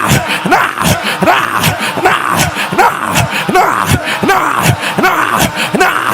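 A man's voice praying loudly in tongues, short forceful syllables fired off about three or four a second, each with a sharp swoop in pitch.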